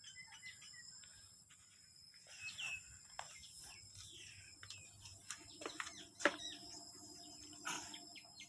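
Outdoor ambience: birds chirping over a steady high-pitched insect drone, with a few sharp clicks, the loudest a little past halfway.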